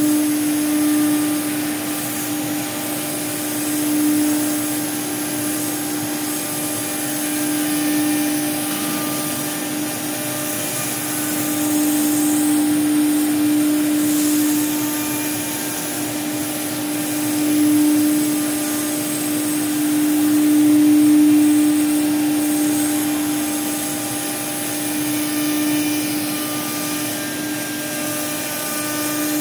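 Blue Elephant 2131 ATC CNC router spindle running at a steady pitch while its bit routes a curved groove into a board. Over the constant tone, the cutting noise swells and eases every few seconds as the bit moves along the cut.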